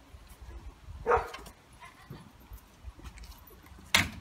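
A dog gives one short bark about a second in, followed by a few fainter dog sounds, with a sharp knock near the end.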